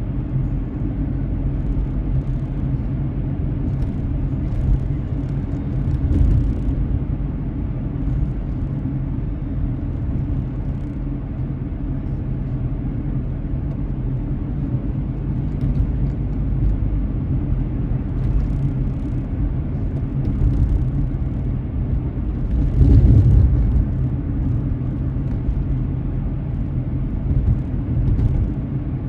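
Car driving, heard through a dashcam: a steady low rumble of tyres and engine, likely on rain-wet road, with faint scattered ticks and a brief louder swell about three-quarters of the way through.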